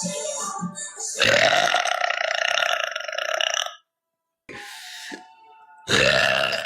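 A woman's long, loud belch lasting about two and a half seconds, cut off abruptly. A second loud belch begins near the end.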